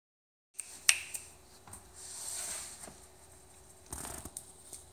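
Quiet scuffling and light taps of a toy Australian Shepherd puppy playing on a carpet runner, with one sharp click about a second in as the loudest sound.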